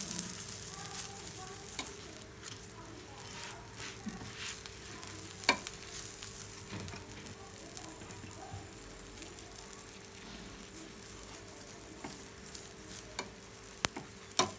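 Oil sizzling on a hot non-stick tawa under an aloo paratha as a steel spoon spreads it over the bread. There is steady frying hiss, with sharp clicks of the spoon against the pan, one about five and a half seconds in and two close together near the end.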